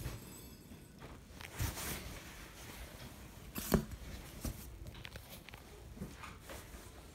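Scattered soft knocks and taps with faint rustling, and one sharper thump a little past halfway.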